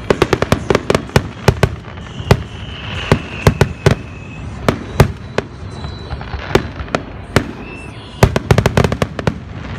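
Aerial fireworks display: shells bursting in quick succession with sharp bangs, in dense rapid clusters at the start and again near the end.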